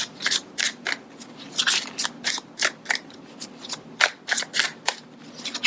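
A deck of tarot cards being shuffled by hand: a run of sharp, irregular card snaps and slaps, about two or three a second.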